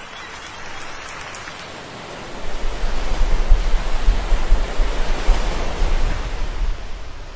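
Rushing, splashing water and the patter of leaping small fish as a humpback whale lunges up through the school mouth-open. About two and a half seconds in it grows much louder, with a low rumble, then eases off near the end.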